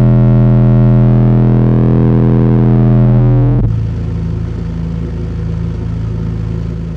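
DD Audio 512c 12-inch subwoofer in a ported box, playing a bass-heavy song loud on its own with no mids or highs hooked up. A held bass note with a buzzy stack of overtones sounds for about three and a half seconds, then gives way to a lower, quieter bass line.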